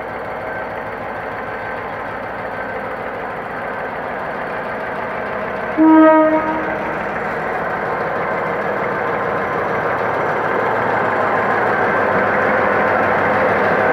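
GM G22W diesel-electric locomotive's EMD 645 two-stroke V12 engine running as it pulls a passenger train out of the station, growing steadily louder as it comes past. About six seconds in it sounds one short horn blast, the loudest sound.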